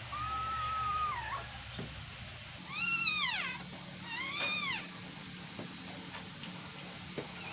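Newborn puppy crying: three high, thin cries, the first held level for about a second and then dropping, the next two short, each rising and falling.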